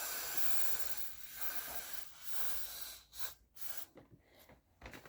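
Got2b aerosol hair spray hissing from the can onto the hairline: one long spray of about a second, then several shorter bursts.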